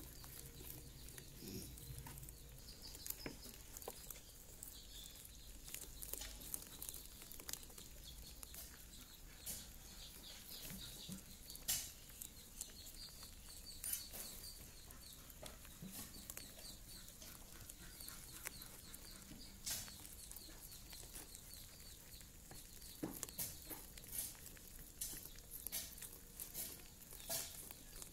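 Baby rabbits nibbling and crunching kernels off a cob of raw corn: a busy patter of small irregular clicks, with a few louder crunches here and there and more of them near the end.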